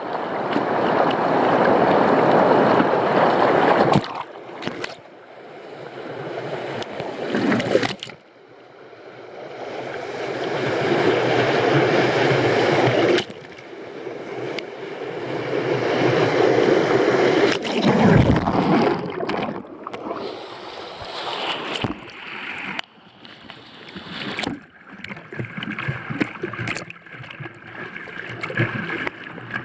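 Whitewater rushing over a river standing wave, a steady noisy rush that swells and falls back, dropping away abruptly a few times.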